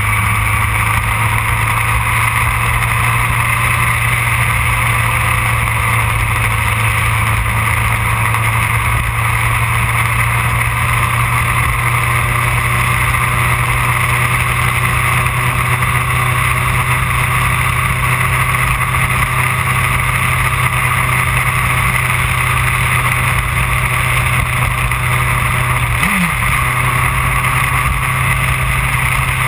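2008 Yamaha R1's inline-four engine running steadily at cruising speed, with wind noise over it. About 26 seconds in, the engine note briefly drops and comes back up.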